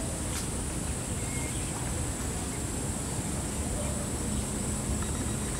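Outdoor ambience: a steady high-pitched hiss over a low rumble, with a faint short high note about a second and a half in.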